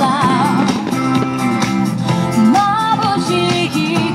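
Music with a singing voice, playing steadily and loud.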